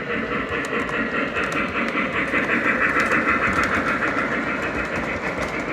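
A train running past with a steady rolling rumble and faint clicks throughout.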